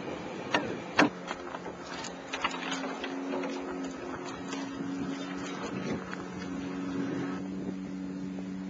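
Two sharp clicks about half a second and a second in, then a steady low mechanical hum, with scattered light knocks and taps over it.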